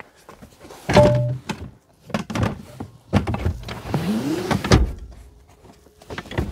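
Backrests of a 2020 Citroën SpaceTourer's rear bench seat being folded forward by hand. A loud thunk comes about a second in, followed by a series of latch clicks and knocks and a short rising squeak from the mechanism, with another knock near the end.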